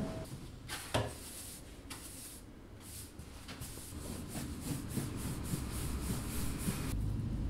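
A bristle broom sweeping a wooden floor in short, repeated brushing strokes, two or three a second. There is a single sharp knock about a second in.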